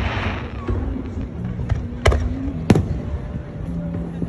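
Fireworks going off: a crackling fizz at the start, then a lighter crack and two sharp booms about two seconds in, half a second apart. Music plays underneath throughout.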